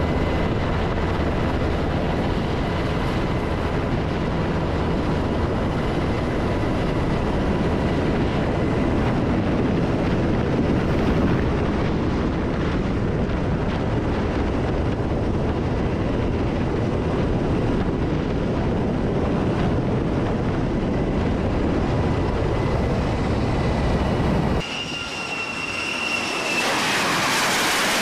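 Steady, loud aircraft engine and airflow noise heard from on board a carrier aircraft as it flies past and then rolls on the carrier's flight deck. About 25 seconds in, the sound changes abruptly to a jet engine's rising rush with a high whine.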